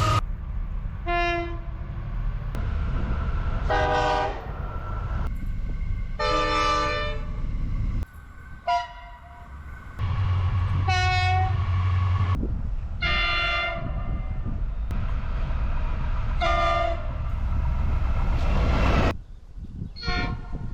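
A string of short train horn blasts from different trains, cut one after another, about seven in all, each a chord of several tones over the low rumble of the passing train.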